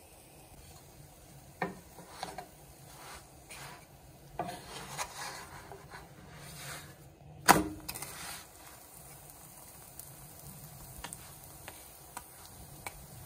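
Wooden spatula knocking and scraping against a nonstick frying pan while a lavash flatbread is slid and turned over, with a few light taps and one much louder knock about halfway through.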